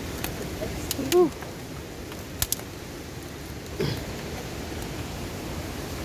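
Steady rush of a waterfall, an even noise with no beat. Over it come a few sharp clicks, the loudest about two and a half seconds in, and two brief pitched sounds, one about a second in and one near four seconds.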